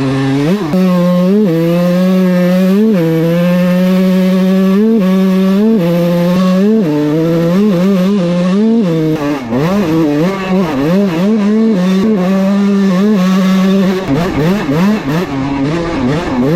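Kawasaki KX125 two-stroke dirt bike engine under hard riding. Its pitch climbs and drops back in repeated steps during the first half, then swings rapidly up and down as the throttle is worked on and off.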